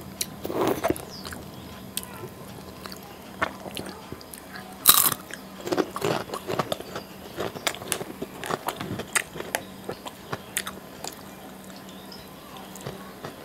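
A person eating by hand: chewing and biting with many short crunchy crackles, the loudest a sharp crack about five seconds in, while papad is being eaten with rice and fish curry.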